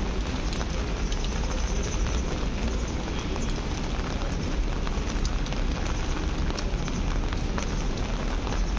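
Steady rain falling on a city street, a constant hiss with many scattered drop ticks over a low rumble.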